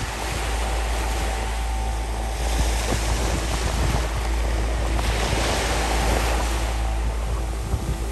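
Small waves breaking and washing up a sandy beach, the rush of surf swelling twice, with wind rumbling on the microphone.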